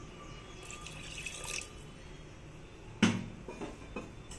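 Water poured from a glass into a pressure cooker holding mutton pieces, followed about three seconds in by a sharp knock and a few lighter taps.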